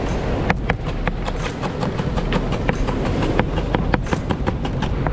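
Chef's knife chopping fresh herbs on a plastic cutting board: a quick, steady run of sharp knocks, about four to five a second, over a low background rumble.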